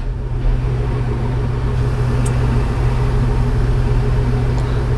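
Steady low hum with an even hiss, as of a vehicle running.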